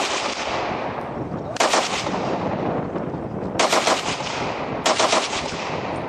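A machine gun firing short full-auto bursts, four of them, each a rapid string of shots followed by a long echo rolling away.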